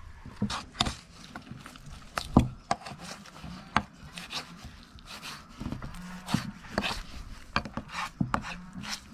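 A hand tool scraping and knocking irregularly against a hard surface: about a dozen sharp knocks with rasping scrapes between them.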